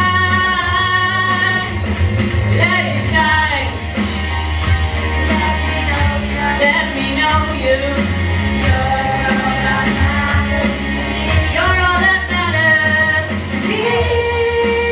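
A female voice singing a song from a stage musical over backing music with a steady low bass line. She holds a long note near the end.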